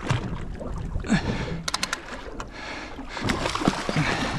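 Water lapping against a small boat's hull, with handling knocks and a quick run of sharp clicks a little under two seconds in.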